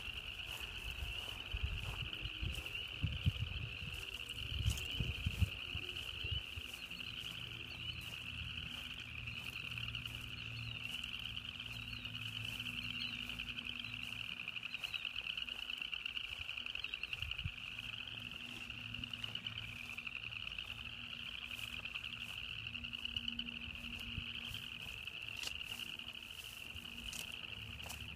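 A dense spring chorus of frogs, a high-pitched trilling and peeping that runs on without a break. A few low thumps come in the first few seconds, and a faint low hum runs under the middle part.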